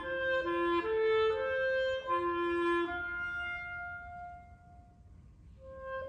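Unaccompanied clarinet playing a slow phrase of held notes. The last note, held from about three seconds in, fades away, and after a short pause the playing starts again near the end.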